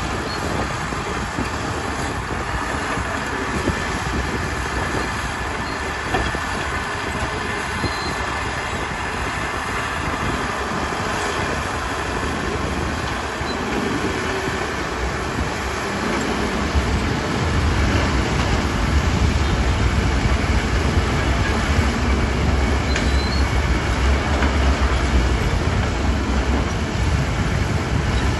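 Heavy earthmoving machinery running steadily with a mechanical clatter. A deep engine rumble grows louder about two-thirds of the way through, as the machine works harder or comes closer.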